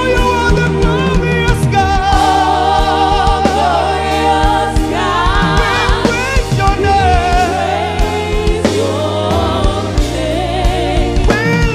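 Live gospel worship music: a band with bass and drums keeping a steady beat under sung vocals, with a gliding lead voice over a choir.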